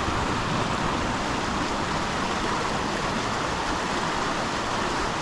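Small stream rushing over a shallow riffle close by: a steady, even rush of water.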